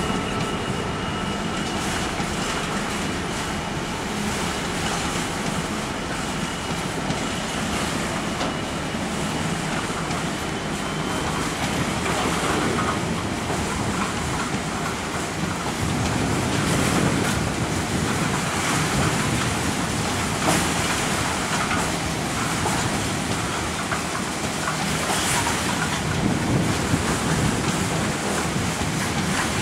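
A train running along the track, a steady rolling noise with occasional sharp wheel clicks over the rail joints.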